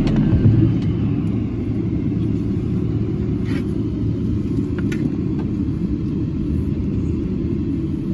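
Steady low rumble inside the cabin of a Boeing 777-300ER rolling along the ground, from its engines and wheels, with a couple of faint clicks.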